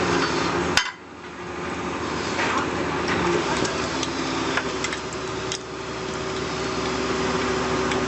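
Heavy machinery engine running steadily, with scattered metallic clanks and knocks. The sound breaks off abruptly about a second in and changes again past the middle.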